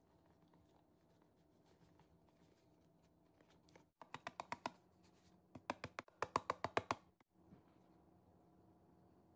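Cardboard box of sweet rice flour (mochiko) being shaken and tapped out over a glass bowl: two runs of quick sharp taps, about ten a second, the second longer and louder, over a faint steady hum.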